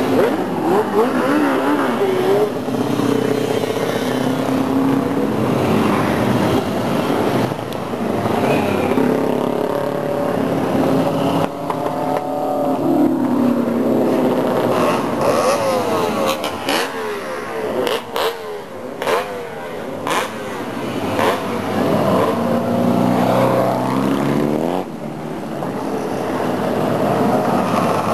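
A stream of classic and modern motorcycles riding past one after another, their engines revving and changing pitch up and down as each goes by.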